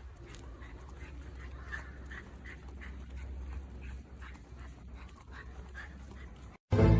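An animal making repeated short, high squeaky calls, about two or three a second, over a low steady hum. Loud music cuts in abruptly near the end.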